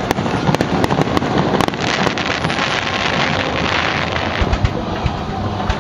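Fireworks going off: a quick run of sharp cracks in the first two seconds, then dense crackling hiss from bursting shells, with a few deep booms near the end. Wind buffets the microphone throughout.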